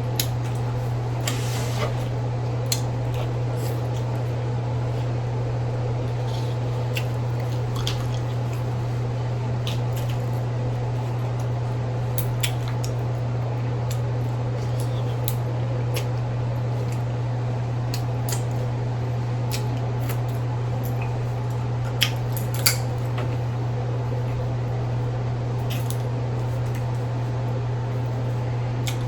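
Crawfish shells and claws being cracked and peeled by hand in butter sauce: wet squishing with scattered sharp cracks, two louder ones about two-thirds of the way through, over a steady low hum.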